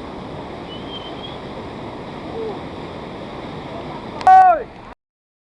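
Strong waterfall current rushing steadily over rocks. About four seconds in, one short, loud high-pitched call that falls in pitch cuts through the water, and the sound then stops abruptly.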